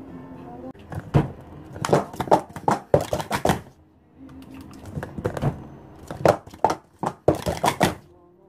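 Hard plastic Speed Stacks sport-stacking cups clacking rapidly against each other and the mat as three stacks of three are upstacked and downstacked, in two fast bursts of clatter with a short pause between.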